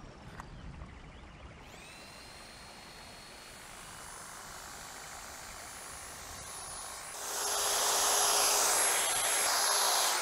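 Corded electric hedge trimmer starting up with a rising whine and then running steadily. About seven seconds in it gets much louder and rougher as the blades cut into a conifer shrub.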